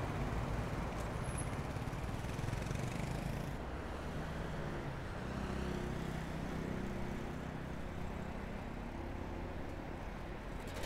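City road traffic going by, louder in the first few seconds, then a vehicle engine running nearby with a low, steady hum.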